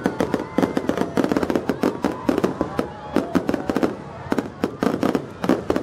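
Aerial fireworks crackling: a dense, irregular run of sharp pops and crackles from glittering star bursts, with a few louder reports among them.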